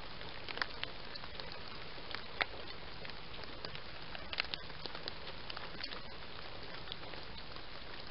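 Steady hiss of a trail camera's microphone, with scattered short crackles and ticks a few times a second.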